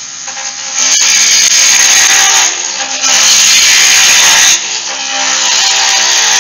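Roughing gouge cutting a spinning wooden spindle on a wood lathe: three loud passes of shaving hiss, each about a second and a half long with short breaks between, over the lathe's steady hum. The cutting stops abruptly at the end.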